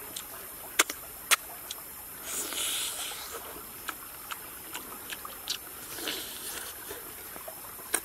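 Steady trickle of a shallow forest stream, with scattered sharp clicks (two louder ones in the first second and a half) and a short hissing rustle about two and a half seconds in.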